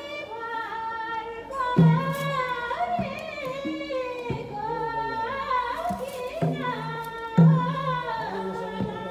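Singing, with a low-pitched hand drum struck several times from about two seconds in.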